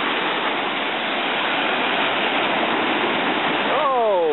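Ocean surf washing up the beach, a steady rushing noise. Near the end a short falling cry cuts through it.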